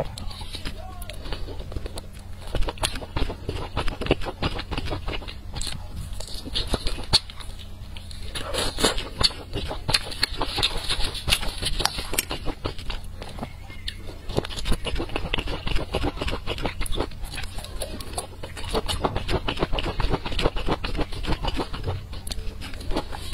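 Close-miked eating sounds: chewing and mouth clicks from eating spicy sauce-coated skewered meat, a dense continuous run of small clicks and smacks.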